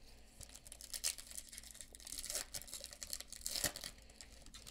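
Foil wrapper of a trading-card pack being torn open and crinkled in the hands: faint, irregular crackles, the loudest about three and a half seconds in.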